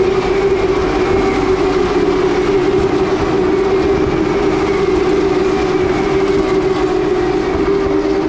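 Racing car engines running at high revs around the circuit: a loud, steady engine drone with a faint whine slowly falling in pitch.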